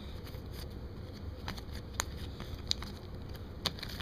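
Trading cards being handled and flipped through, giving a few light, scattered clicks and taps over a low steady hum.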